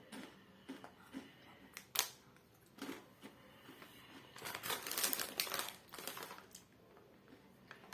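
Crinkling of a plastic bag of Takis chips being handled. There are a few short sharp crackles, then a longer stretch of rustling about halfway through.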